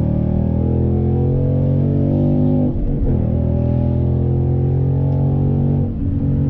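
2015 Mustang GT's 5.0-litre V8 pulling under acceleration, with a brief break in the engine note about three seconds in and again near the end as the manual gearbox is shifted up.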